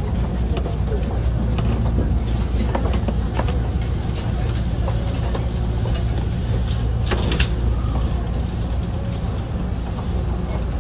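Hankyu 1300 series electric train (Toyo IGBT inverter drive) running between stations: a steady low rumble of wheels and traction motors, with scattered clicks and knocks from the track and a hiss.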